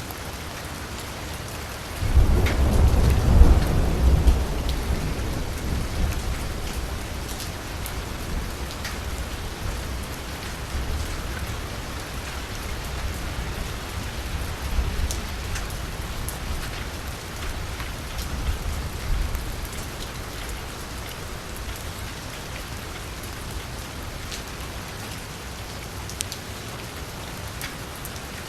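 Steady rain falling on a street. About two seconds in, a loud roll of thunder breaks in and rumbles on, slowly fading over several seconds.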